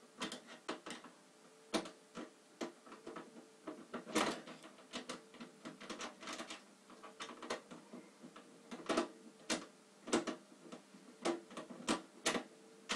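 Irregular clicks and knocks from a desktop PC's metal case as the side panel and its screws are handled and fastened back in place.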